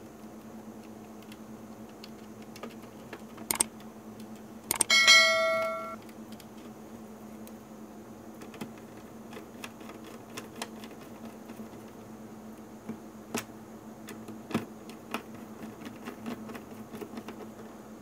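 Small clicks and taps of a precision screwdriver working the screw terminals of a plastic Wi-Fi relay module, with one bright metallic ring about five seconds in that dies away within a second. A steady low hum sits underneath.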